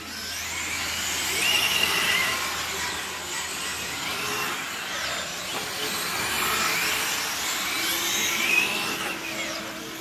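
Electric 1:8 GT radio-controlled cars running on 4S batteries. Their motors whine, the pitch rising and falling again and again as the cars accelerate and brake through the corners.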